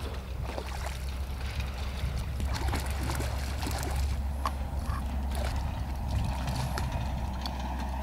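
Hooked trout splashing at the water's surface as it is led into a landing net, with short irregular splashes over a steady low rumble.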